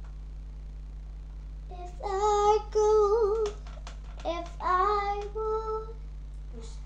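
A young girl singing two short phrases of held, wavering notes, unaccompanied, from about two seconds in until about a second before the end, over a steady low hum.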